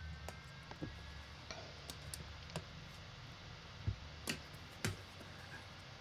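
Faint handling noises: scattered soft clicks and three sharper knocks about four to five seconds in, as a hand works a flexible rubber coupler onto the outlet at the back of an up-flush toilet.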